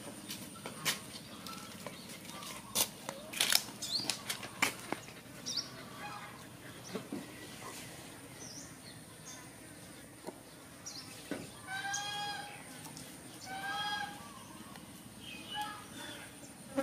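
A macaque and kittens scuffling on concrete: a run of sharp taps and rustles in the first few seconds, then quieter, with small birds chirping and two short high-pitched animal calls near the end.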